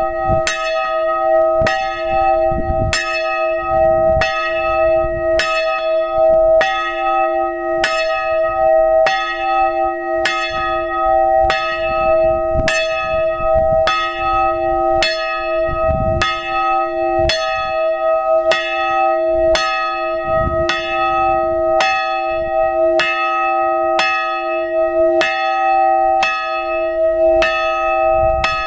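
A single hand-rung church bell, the small 1921 Schilling & Lattermann iron hard-cast bell (strike note e''), swinging steadily with its clapper striking about four times every three seconds. Each stroke rings on into the next.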